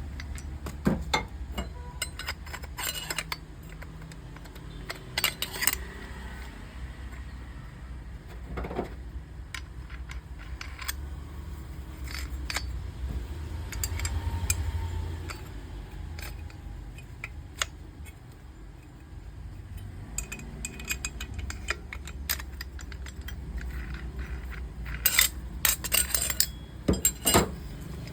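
Small metal objects clinking and clattering as they are handled, in scattered clicks with a quick cluster near the end, over a low steady hum.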